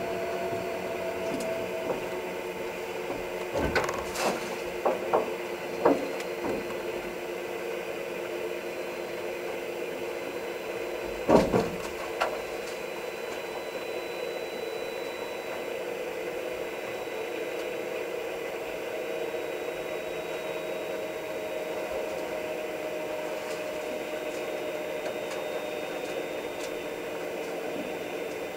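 Turbo Otter's turboprop engine idling with a steady whine, its propeller turning slowly, heard from inside the cockpit. A few sharp knocks come about four to six seconds in, and a louder thump about eleven seconds in.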